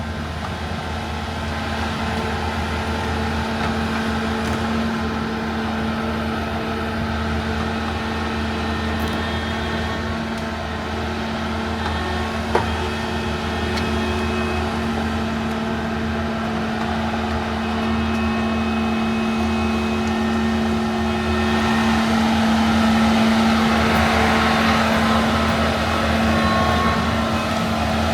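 LiuGong 942F excavator's diesel engine running steadily under work, with a single sharp click about halfway through. It grows a little louder in the last few seconds.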